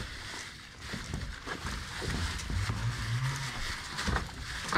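Dogs chewing and crunching raw chicken heads: scattered small crunches over a low rumble.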